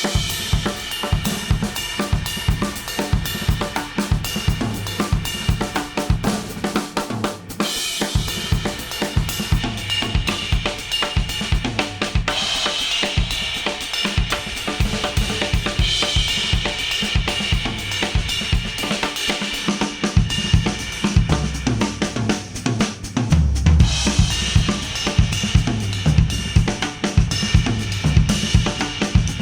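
Instrumental music with a full drum kit (snare, hi-hat, cymbals and bass drum) keeping a steady beat. It is played back through Apple earbuds and recorded inside an artificial ear simulator.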